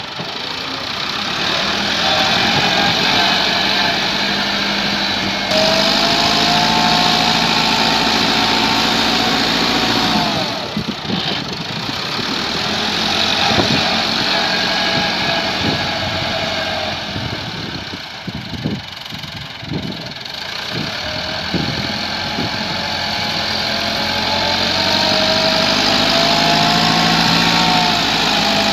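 Massey Ferguson 385 tractor's diesel engine running as the front blade pushes soil, its pitch rising and falling with the load. About two-thirds of the way through it eases off, and several short knocks come through.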